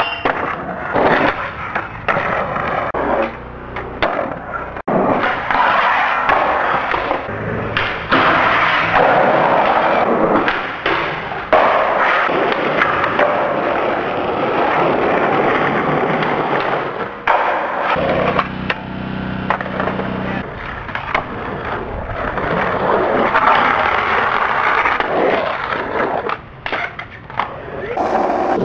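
Skateboard wheels rolling over concrete, broken again and again by sharp clacks of boards popping and landing, from several skate clips cut together.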